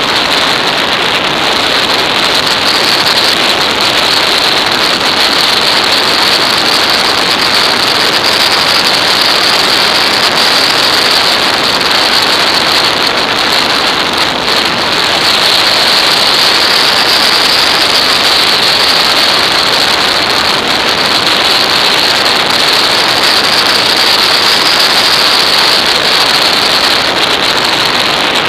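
Steady rushing wind and road noise on the microphone of an action camera mounted on a motorcycle riding at road speed.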